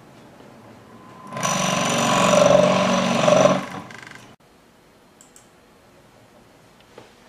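A flexible inverted pendulum rig's drive motor and gearing, chattering in a loud, harsh buzzing rattle for about two seconds, starting about a second and a half in, then dying away and cutting off abruptly. The controller is going unstable, the vibration a sign of the spillover instability that plain LQR control brings on.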